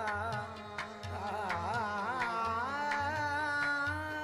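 Background music from a Hindi film song: a melody that slides and bends in pitch over a steady hand-drum beat.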